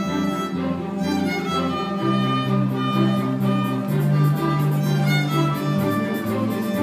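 Violin played with the bow, a melody over a backing track that holds long low bass notes. A light, regular beat comes in during the second half.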